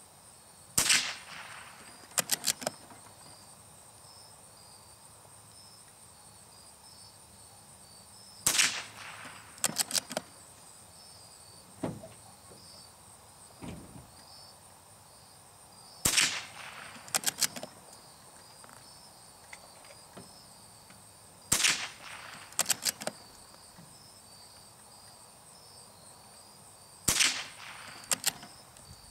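Marlin Model 25 bolt-action .22 LR rifle fired five times, every five to eight seconds. Each shot is followed about a second later by a few quick clicks of the bolt being worked to eject the case and chamber the next round. Insects chirp steadily underneath.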